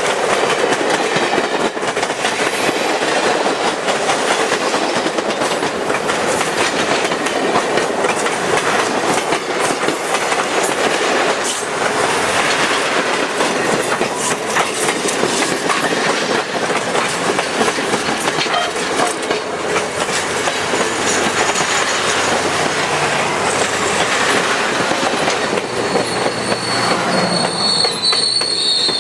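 A train's cars rolling steadily past close by, their wheels clicking over the rail joints. A high-pitched wheel squeal comes in near the end.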